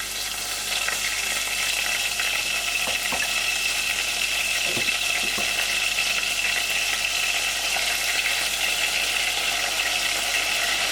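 Marinated wood pigeon breasts frying in a hot pan of olive oil and butter, sizzling steadily, with a few faint knocks about three and five seconds in.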